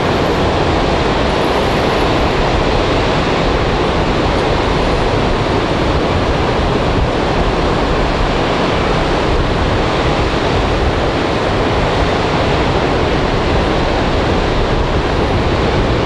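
Pacific Ocean surf breaking on a sandy beach: a steady, loud roar of waves with no separate crashes standing out.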